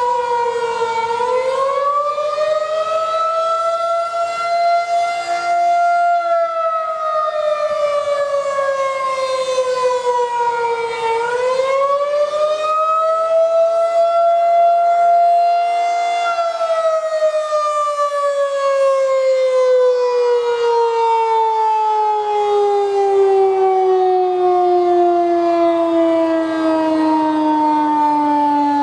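Federal Signal 2001 outdoor warning siren sounding a wail during its monthly test. The pitch rises and falls twice in slow sweeps of about five seconds each. About halfway in it begins a long, slow, steady fall as it winds down.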